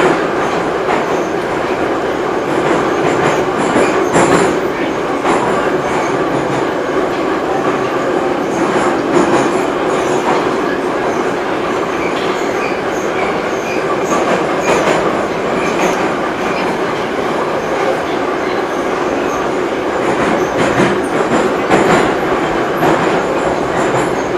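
Moscow Metro 81-717.5/714.5 train running at speed through the tunnel, heard inside the car: a loud, steady rumble with a few clacks from the wheels over rail joints.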